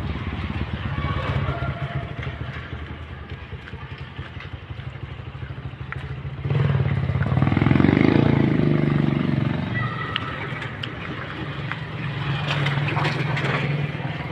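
Small motorcycle engine running steadily while riding along a rough road, getting louder for a few seconds about halfway through.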